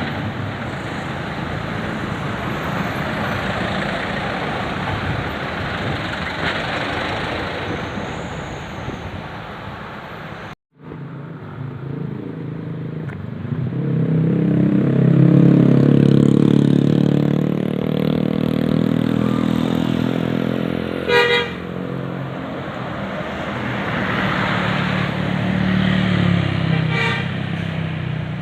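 Roadside traffic noise, then a bus passes with its engine loud, and a musical multi-tone 'telolet basuri' air horn sounds in quick rapid bursts, twice in the second half.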